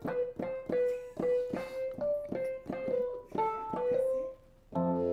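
Electronic keyboard with a piano sound, playing a single-note melody at about three notes a second. Near the end a chord is held.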